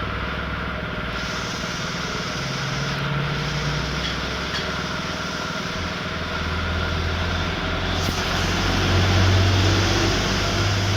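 Honda K56 150 cc single-cylinder motorcycle engine running steadily, its note shifting about halfway through and getting a little louder near the end.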